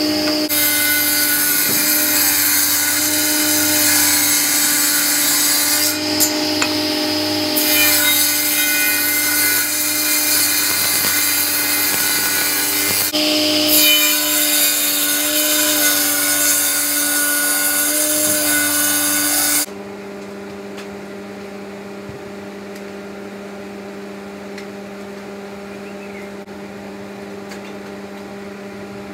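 Table saw running and ripping boards, a loud steady machine sound that shifts briefly as cuts start and end. About two-thirds of the way through it stops abruptly and a quieter steady hum takes over.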